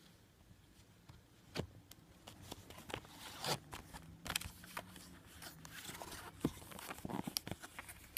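Clear plastic blister packaging and a paper instruction leaflet being handled: irregular crinkling and rustling with scattered sharp clicks and taps as the voltage tester pen is taken out of its plastic tray.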